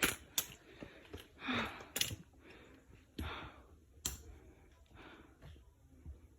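A person breathing, in a few soft breaths, with scattered sharp clicks and knocks between them.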